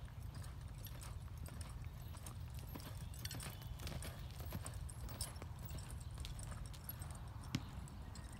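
Hoofbeats of a horse cantering on a soft dirt arena, over a steady low rumble, with one sharp click near the end.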